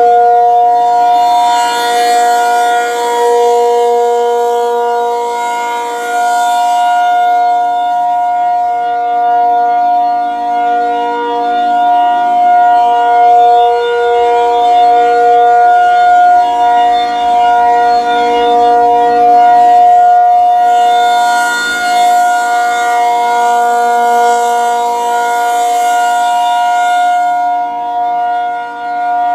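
Reverse-wired ACA Penetrator-50 tornado siren sounding a steady two-tone chord, the alert signal. Its rotating horn makes the sound swell louder and brighter twice, about twenty seconds apart, as it sweeps past.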